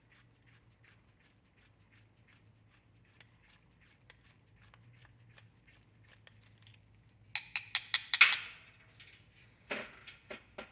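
Small metallic clicks and ticks of a screwdriver and carburetor parts as the main jet is worked out of a Honda GX160 carburetor. A quick run of louder, sharp clicks comes about two-thirds of the way in, and a few more come near the end.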